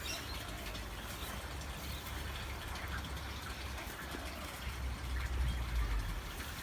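Outdoor background of faint bird chirps over a steady hiss, with a low rumble that swells about five seconds in.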